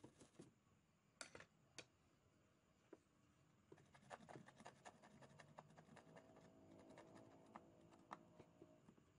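Faint scratching and small clicks of a circuit board being scrubbed clean of leaked electrolytic-capacitor residue.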